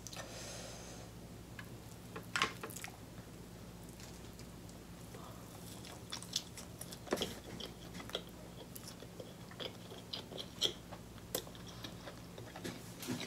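Close-miked eating sounds as king crab meat dipped in melted cheese sauce is bitten and chewed: soft chewing with scattered short clicks, over a steady low hum.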